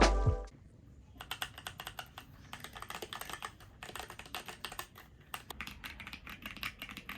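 Typing on a mechanical keyboard: a fast, uneven run of key clacks starting about a second in. The tail of loud music cuts off in the first half second.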